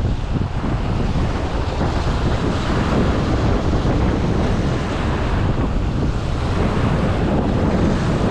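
Strong storm wind buffeting the microphone: a loud, steady rush.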